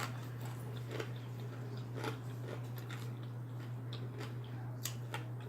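Close-up chewing and biting of bacon: a few short, sharp crunching clicks spaced irregularly. A steady low electrical hum runs underneath.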